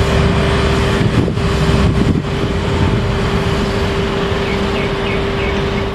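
Mobile crane truck's engine running as the boom is lowered: a deep steady rumble with a constant whine over it.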